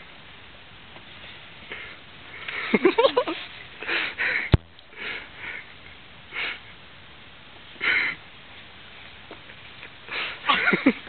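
A person sniffing and snickering close to the microphone: several short breathy sniffs, with a brief voiced snicker about three seconds in and again near the end. One sharp click about four and a half seconds in.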